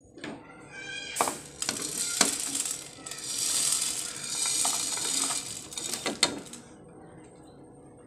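Dry spices (dried ginger pieces, black peppercorns and cumin) tipped from a ceramic plate into a nonstick pan of dry-roasted rice, rattling and pattering as they land. There are sharp knocks of utensil and plate against the pan about a second, two seconds and six seconds in.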